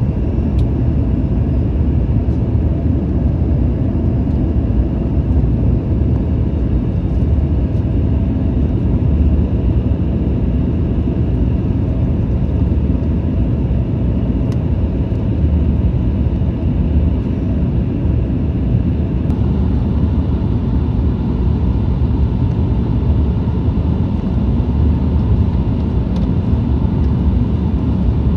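Cabin noise inside a Boeing 737-900ER: a steady low rumble of airflow and engines, with a faint steady tone joining about two-thirds of the way in.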